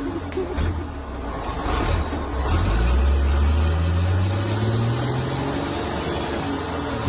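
Heavy logging truck's engine under load, its pitch rising steadily from about two and a half seconds in and then holding at the higher speed. A few sharp knocks come in the first two seconds.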